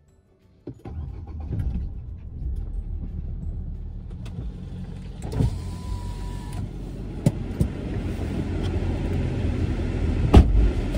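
Ford EcoSport's engine comes on under a second in and runs at idle, a steady low hum heard inside the cabin. Several clicks and a short beep follow, then a car door shuts with a thud about ten seconds in as a passenger gets in.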